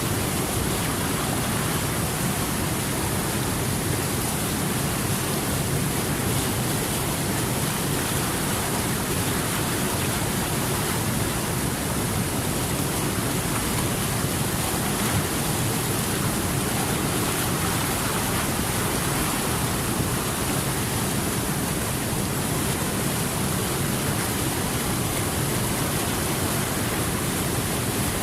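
Steady rushing of flowing water, an even, unbroken wash of sound.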